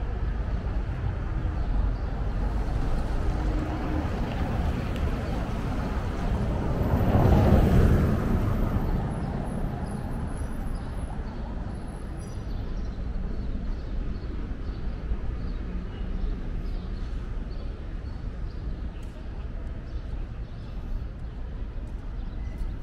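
City street ambience: a steady low traffic rumble, with one vehicle passing close, swelling up and fading away about seven to eight seconds in.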